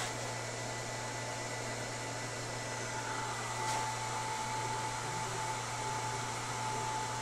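Steady electrical hum and fan-like hiss from a powered-up CNC control and its AC servo drives, with the newly enabled fourth-axis servo motor live. A thin steady whine grows stronger about three and a half seconds in.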